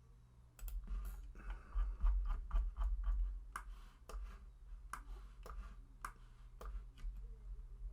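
Irregular clicking of a computer mouse and keyboard while lines are drawn in CAD software, about fifteen to twenty sharp clicks, over a low steady hum.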